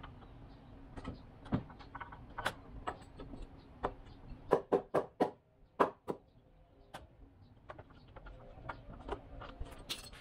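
Sharp knocks on a heavy wooden beam as it is worked into place on top of its posts: a quick run of about five knocks about four and a half seconds in, then one more. Lighter taps and clicks come before and after, over a faint steady hum.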